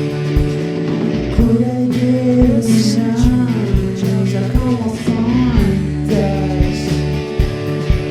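Psychedelic rock band playing live, with sustained guitar and bass tones over a steady drum beat. A voice sings a wavering line for a few seconds in the middle.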